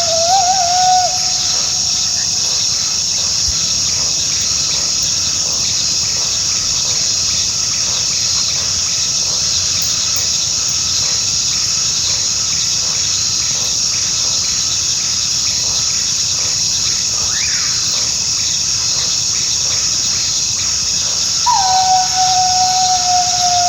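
Coyote howling: a long held note that wavers and breaks off about a second in, then a new howl near the end that starts high, drops and holds, with a quick glide up and back down over it. Between the howls, a steady high chirring of insects fills the gap.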